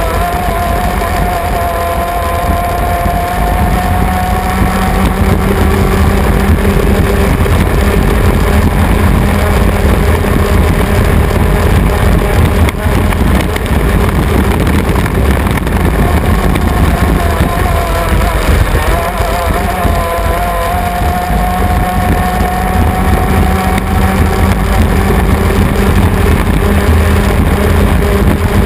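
A 350 Hydro racing hydroplane's small-block V8 inboard engine running hard at racing speed, heard from on board with wind and water rush on the camera. Its pitch dips briefly a little past halfway, then climbs again.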